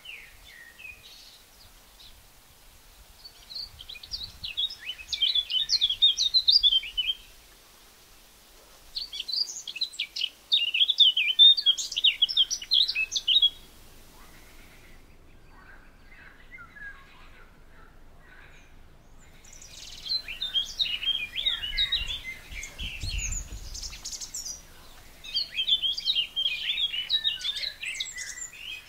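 Eurasian blackcap singing: four phrases of fast, varied warbling, each a few seconds long, with short pauses between them.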